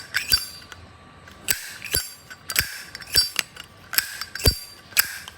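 Zippo lighter lid being flipped open and snapped shut several times: sharp metallic clicks, some with a short ring. This is the lighter's lid action before it has been adjusted and its click made louder.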